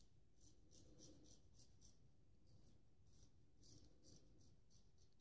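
Gold Dollar 208 carbon steel straight razor scraping through lathered stubble on the neck in short, faint strokes, about three a second, with a brief pause near the middle.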